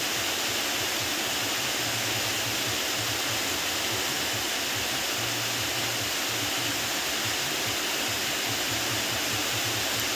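Steady hiss of heavy rain, constant in level, with a faint low hum coming and going underneath.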